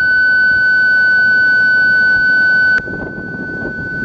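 WSPR beacon tone played from a mobile phone's speaker into a transceiver's hand microphone to key it on VOX: a single steady whistle-like pitch. Almost three seconds in, it drops with a click to a much quieter level and carries on.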